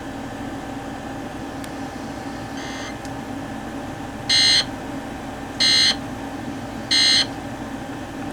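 Emergency Alert System end-of-message signal: three short, loud bursts of SAME digital data tones, about 1.3 s apart, marking the end of the alert. A fainter burst comes about a second and a half before them, over a steady low hum.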